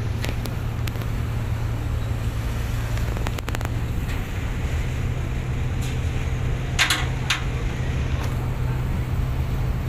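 Roll-on/roll-off ferry's engines running with a steady low drone heard from the open deck, the pitch shifting slightly about four seconds in. Two short hissing bursts come about seven seconds in.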